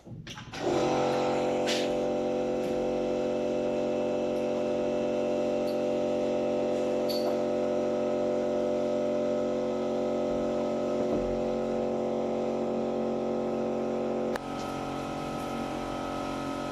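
A steady, even machine hum with a fixed pitch, starting just under a second in and dropping slightly in level near the end.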